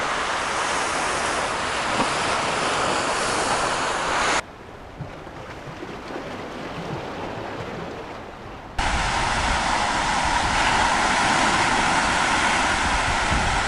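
Lake waves breaking and washing on a rocky shore, a steady rushing noise with wind gusting on the microphone. About four seconds in it drops to a much softer wash, and the loud surf comes back about nine seconds in.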